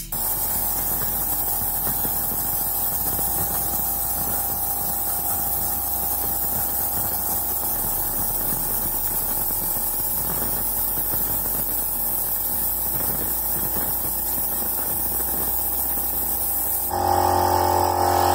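Small electric vacuum cleaner running steadily as its hose sucks dust out of an empty car air-filter box. The hum grows louder near the end.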